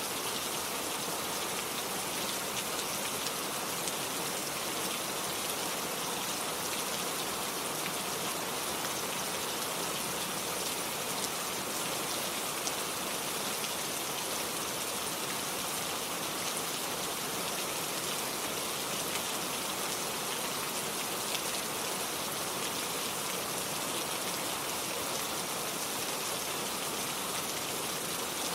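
Steady rain falling: an even hiss with many fine drop ticks, unchanging in level.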